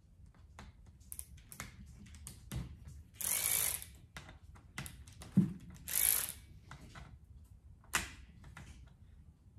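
Ratcheting screwdriver clicking as it works screws on an oil pump, with scattered single clicks and two longer runs of rapid ratcheting, about three seconds in and again about six seconds in, plus one sharp knock between them.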